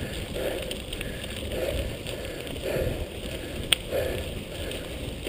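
Mountain bike tyres rolling on a gravel track, with a rider's heavy breathing swelling about once a second. There is a single sharp click a little before four seconds in.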